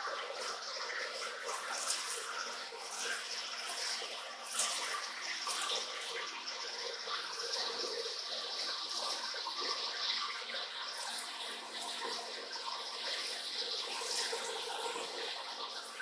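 Warner & Swasey turret lathe drilling into spinning round stock with a spade drill, roughing out a hole: flood coolant splashing steadily over the work, with scattered clicks of chips falling and a faint steady hum from the machine.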